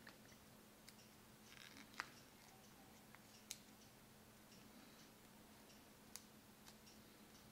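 Faint crackles and a few sharp ticks of stiff coloured paper being creased and folded by hand, the loudest about two seconds in, over a faint steady hum.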